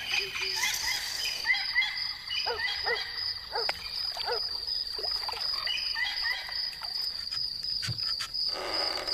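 Insects and frogs calling: a steady, high, pulsing insect trill runs throughout, with short repeated frog chirps and calls over it.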